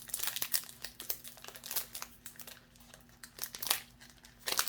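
Foil Pokémon card booster pack wrapper crinkling as it is handled and opened. The crackles come thick in the first couple of seconds, thin out, then pick up again near the end.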